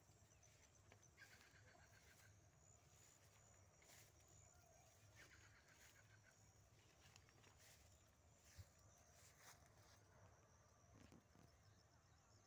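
Near silence: faint field ambience with a thin, steady, high pulsing trill of insects and a couple of faint chirps.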